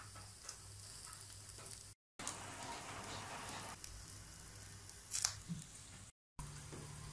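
Meat skewers sizzling faintly on the wire rack of an electric grill, a steady hiss broken by two brief dropouts. There is a single sharp click about five seconds in.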